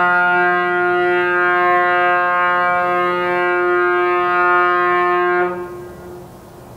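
The car ferry Lavender's ship's whistle sounding one long, steady blast as she departs port. It cuts off about five and a half seconds in, with a brief echo trailing after.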